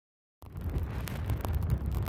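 Wind buffeting the microphone: a heavy, gusting low rumble that cuts in suddenly about half a second in, with a few faint clicks.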